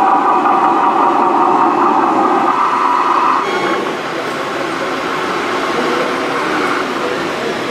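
Radio-controlled scale construction machines running: a steady mechanical whir from the model crawler dozer's drive, which changes abruptly about three and a half seconds in to a lower, more even mix of machine noise from the model excavator and dump truck.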